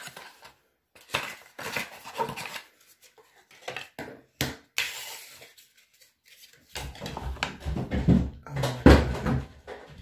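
Cosmetic packaging being handled and opened, with sharp clicks and rustles. From about seven seconds in come loud, heavy thuds and bangs of toys being thrown down stairs, the loudest near the end.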